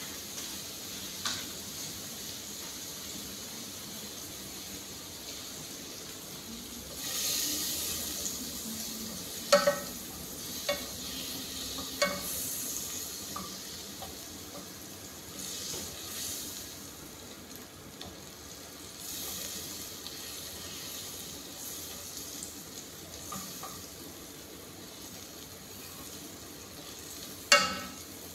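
Butter, onion and garlic sautéing in a steel saucepan, sizzling softly, with stronger bursts of sizzle as a spoon stirs them. The spoon knocks sharply against the pot a few times, loudest near the end.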